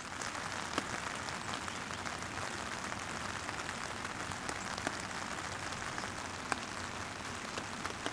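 Steady rain falling through the bush, with scattered sharp ticks of single drops landing close by.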